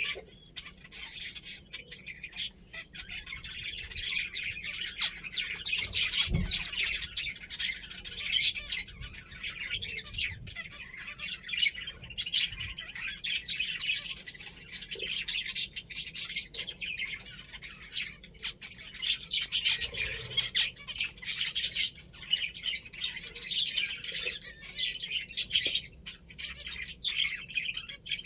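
A flock of pet finches chirping and twittering continuously, many short high calls overlapping. A single low thump about six seconds in.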